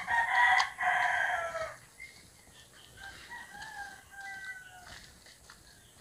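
A rooster crowing, one loud crow of about two seconds that falls in pitch at the end, followed about three seconds in by a fainter crow lasting about two seconds.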